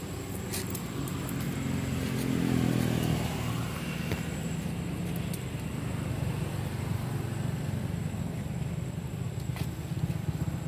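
An engine running at a low, steady pitch. It swells and rises in pitch about two to three seconds in, then settles into an even hum that grows slightly louder near the end.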